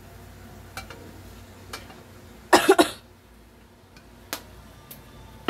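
A short loud burst of coughing about halfway through: three coughs in quick succession. A few faint clicks come before and after it.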